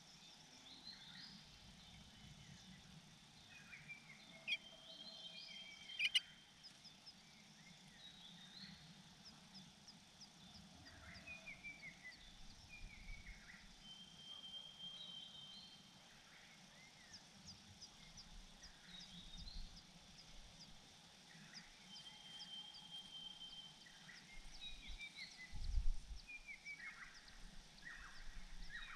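Wild birds chirping and calling, with many short chirps and falling notes and a repeated steady high whistle. There are two sharp clicks about a fifth of the way through and a low thump near the end.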